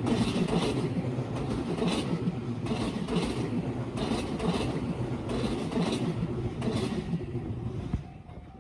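Electric commuter train passing over a level crossing: a loud rumble with the wheels clacking over the rail joints about twice a second. The noise drops away suddenly near the end as the last car clears.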